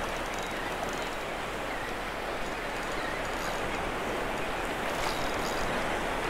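Gulf surf washing up the beach and over the shallows, a steady hiss, with a few faint clicks now and then.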